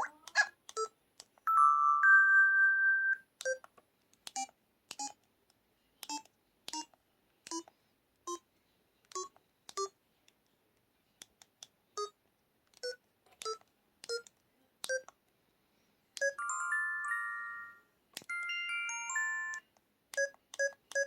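LG-KT1000 mobile phone's built-in electronic sound effects. Short key beeps step up in pitch one after another, with a held two-tone beep about two seconds in. Two brief multi-note electronic jingles play near the end.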